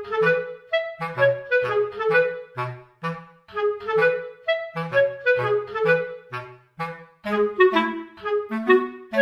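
Background music: a lively woodwind-like tune of short, separate notes over a bass line.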